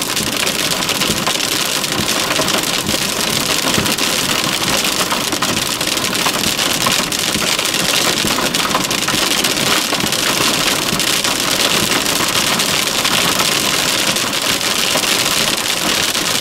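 Heavy rain pouring down: a dense, steady hiss of countless drops pattering on hard surfaces.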